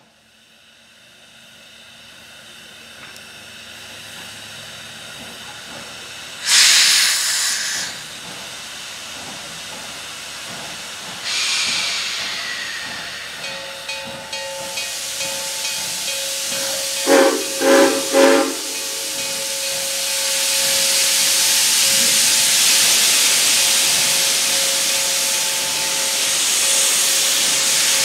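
Standing steam locomotive CN 7470, an 0-6-0 switcher, hissing steam, with two short loud bursts of steam release several seconds apart, then three short blasts on its steam whistle. After the whistle comes a steady loud hiss of steam blowing from the open cylinder cocks.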